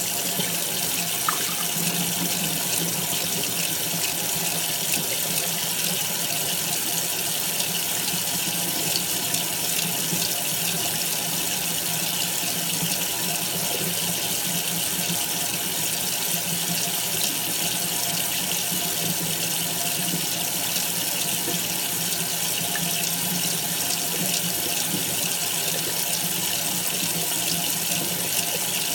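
Tap water running steadily, pouring onto a wet fabric surface.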